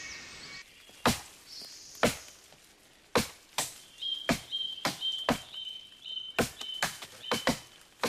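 Axes chopping into the trunk of a large tropical tree: sharp strikes, first about one a second, then quickening to two or three a second as more than one axe works. From about halfway, a high chirping call repeats in the background.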